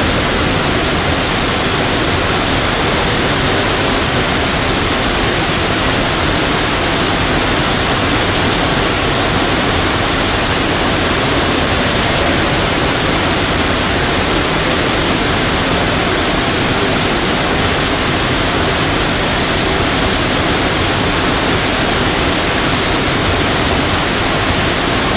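Steady, loud rushing hiss, even across all pitches, with no voices or separate sounds standing out.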